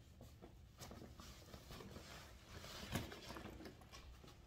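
Faint rustling and handling of a padded guitar gig bag as it is moved about, with small scrapes and a light knock about three seconds in.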